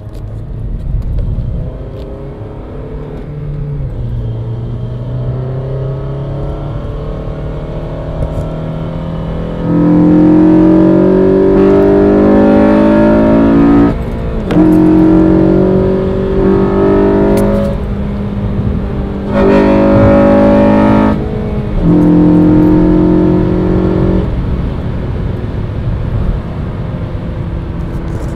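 2009 Honda Civic Si's 2.0-litre i-VTEC four-cylinder engine accelerating, heard from inside the cabin. After about ten seconds of steady running, the engine note jumps abruptly much louder and climbs as the engine pulls high in the rev range with VTEC engaged. The loud pulls are broken by three short dips at the gear changes, and the engine settles back to a quieter steady drone for the last few seconds.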